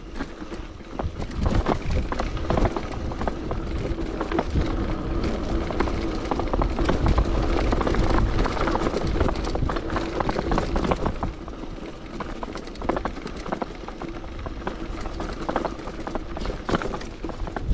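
Cube bicycle rattling over rough ground: many sharp clicks and knocks from the bike, over a low rumble of wind on the camera's microphone.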